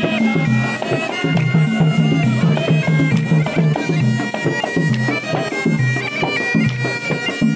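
Bagpipes playing a folk melody of held, stepping notes over a drone, with frame drums beating a steady rhythm underneath.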